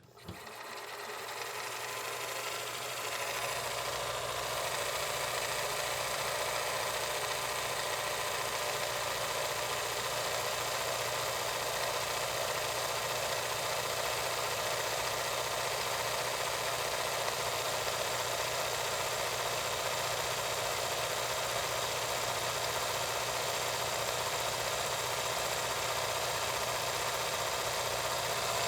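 16mm film projector running with a steady mechanical clatter of the film transport. It swells up from silence over the first couple of seconds, then holds even.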